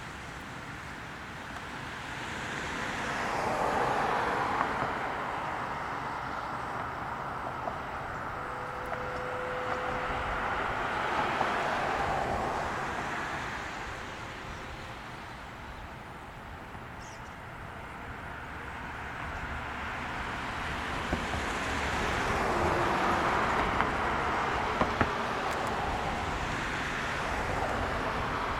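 Road traffic passing, tyre and engine noise swelling and fading as three vehicles go by.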